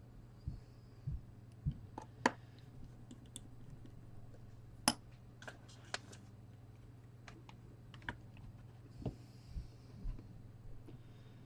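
Scattered light clicks and taps of small tools and parts being handled at a repair bench, irregular and a dozen or so in all, over a steady low hum.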